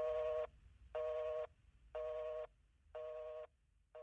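Telephone busy signal after the line is hung up: a tone beeping about once a second, each beep about half a second long, growing quieter toward the end.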